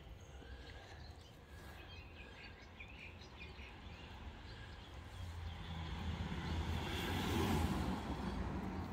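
Outdoor background noise with faint bird chirps in the first half, then a rushing noise that swells to its loudest about seven and a half seconds in and fades again.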